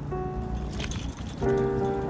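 Background music of held, sustained notes changing every half second or so, with a short rustling noise about a second in.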